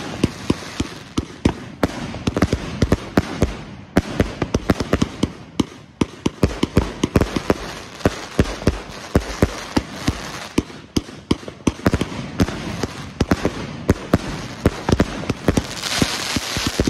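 Neo 200-shot firework cake firing in rapid succession: a continuous stream of sharp shots and bursting breaks, several a second, with a brighter hiss near the end.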